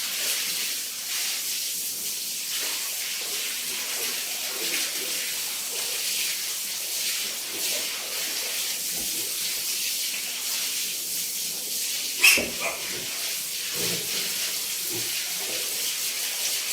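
A steady hiss, with one loud sharp knock about twelve seconds in.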